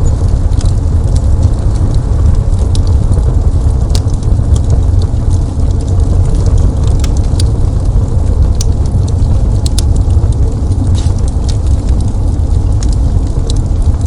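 Crackling fireplace fire: irregular sharp pops and snaps over a steady low rumble.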